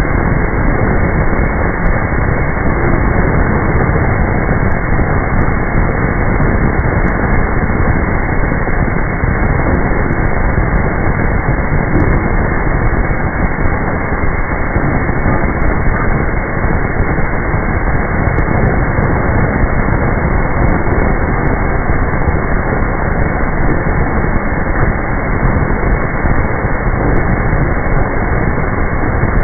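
Automatic brass valve hot-forging machine running, a loud, steady noise with no distinct strokes.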